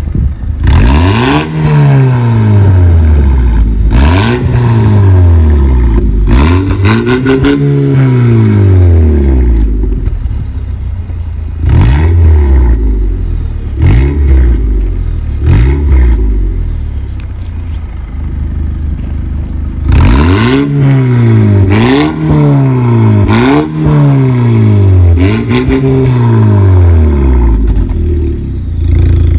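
Audi A4 B7 2.0 turbocharged four-cylinder petrol engine revved over and over at standstill through a custom 63 mm stainless-steel exhaust with two tuned mufflers, set to its loudest mode. Each rev rises and falls in pitch, with a short spell of lower idle about two-thirds of the way through.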